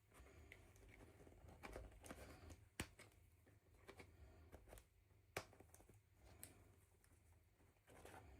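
Near silence with faint handling noises: light rustles and small clicks of small objects being handled, with two sharper clicks, one a little before the middle and one just after it.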